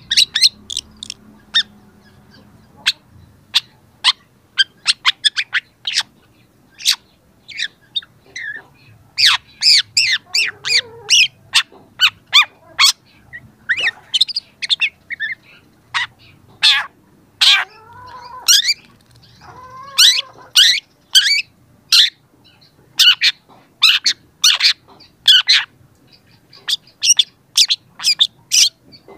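Young long-tailed shrike singing: rapid runs of short, sharp, sweeping notes, broken by a few lower, harsher calls about a third and two-thirds of the way through.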